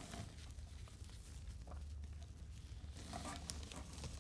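Soft rustling and crinkling of a tulle net skirt and clear plastic packaging bags being handled in a cardboard box, with a few sharper crinkles about three seconds in.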